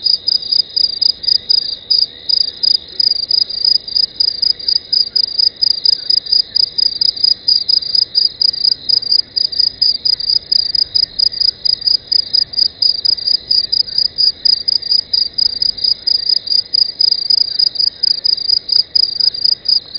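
An insect calling close to the microphone: a loud, high-pitched chirp repeated several times a second without a break.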